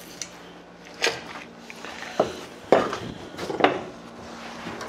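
Chef's knife chopping through a fish's neck bone against a plastic cutting board to take the head off: four sharp knocks with a brief clatter, the loudest a little past the middle.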